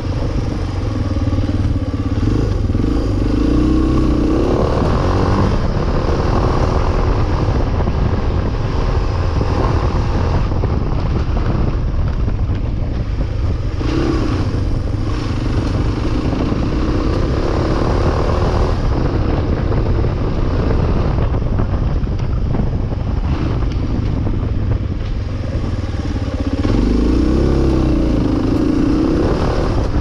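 Suzuki Djebel 250XC's single-cylinder four-stroke engine running under way, heard from on the bike. The pitch rises and falls with the throttle several times as the bike rides along a rough forest road.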